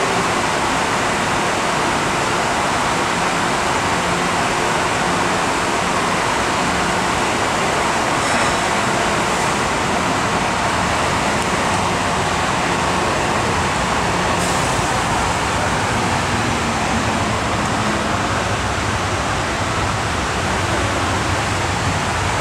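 Steady noise on an underground metro platform as an MTR M-Train runs through the station without stopping, its cars passing the platform screen doors near the end.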